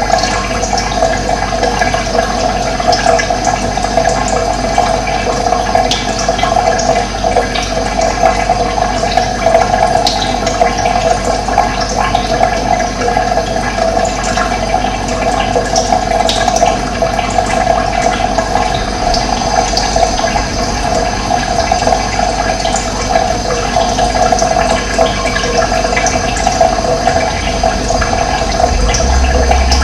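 Running water flowing steadily, a continuous rushing. A low rumble joins near the end.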